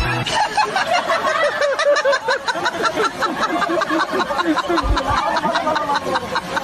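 Several people laughing hard together, in quick rhythmic ha-ha bursts, with a single low thump about five seconds in.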